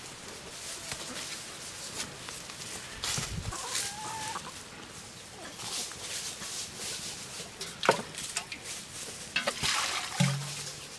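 Chickens clucking, with scattered clicks and knocks as a samovar is handled. Near the end water is poured from a metal jug into the samovar.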